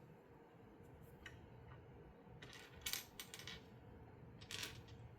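Faint clicks and clinks of small plastic LEGO pieces being handled and pressed together, in a few short bunches: one a little over a second in, a cluster around the middle, and another near the end.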